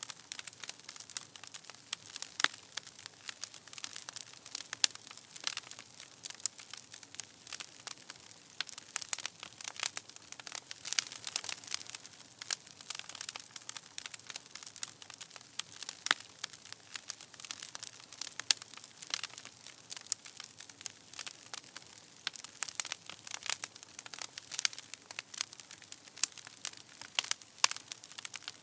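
Freshly started bonfire crackling: a dense, irregular run of sharp pops and snaps from burning wood over a faint hiss of flame.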